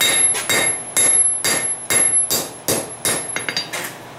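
Hand hammer striking hot steel on an anvil: about a dozen forging blows, roughly three a second, each with a bright metallic ring, the last few lighter, stopping shortly before the end. The blows are reshaping the head of a red-hot ball peen hammer held in tongs.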